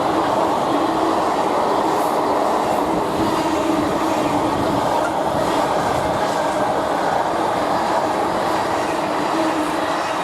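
Freight train wagons rolling past at speed: a steady, loud rumble of wheels on the rails with occasional faint clicks of wheels over the rail joints.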